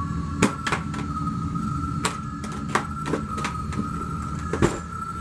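Latches of a hard-shell trombone case snapping open and the case being handled, a run of sharp clicks, with the lid lifted open near the end. A steady high hum runs underneath.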